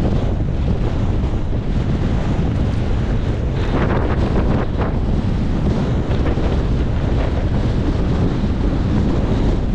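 Strong wind buffeting the microphone: a loud, steady rushing noise heaviest in the low end, with a few short crackles about halfway through.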